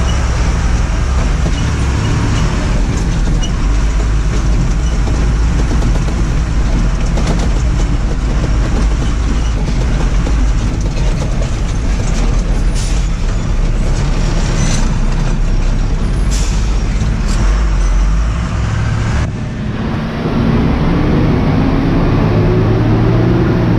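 Tata tipper truck's diesel engine running steadily under load, heard inside the cab on a rough dirt track, with scattered knocks and rattles from the cab over bumps. The engine sound changes about nineteen seconds in.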